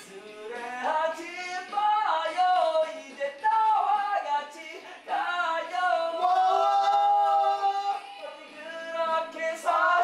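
A song with a singing voice, its melody gliding between notes and holding one long note near the middle.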